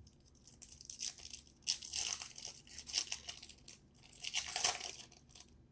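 A trading-card pack wrapper being torn open and crinkled by hand, in three short scratchy bursts.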